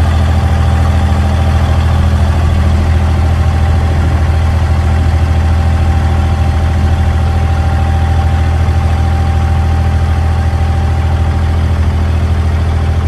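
Diesel engine of a wooden abra water taxi running steadily under way, a loud, even low hum.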